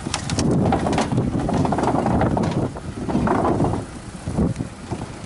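Nissan hatchback driving slowly across the wooden plank deck of a river pontoon ferry, its tyres rumbling and knocking over the boards, dropping off about four seconds in as it passes. Wind buffets the microphone throughout.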